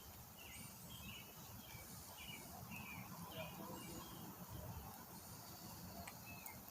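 Faint outdoor ambience with a bird calling a quick series of short chirps, about two a second, for the first few seconds, and a few fainter, higher calls.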